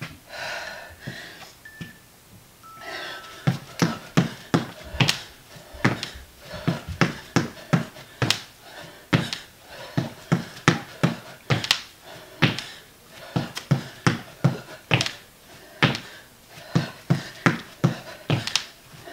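Feet thumping and landing on the floor in quick succession during high knees and sumo squat jumps, about two to three impacts a second from about three seconds in.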